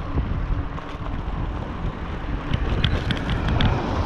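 Wind buffeting the microphone on a moving bicycle, over a steady low rumble from the ride over rough, broken tarmac. A few short high ticks come in about two and a half seconds in.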